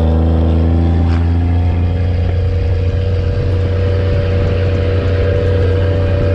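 1996 Cummins 5.9 12-valve inline-six turbo diesel running steadily on waste motor oil as fuel, a deep even drone that eases slightly in pitch in the first second and then holds.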